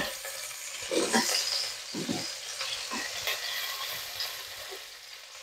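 Sliced shallots and garlic sizzling in hot oil in a wok with a steady hiss, being sautéed until golden and fragrant. A few strokes of a metal spatula scraping through them come about a second apart.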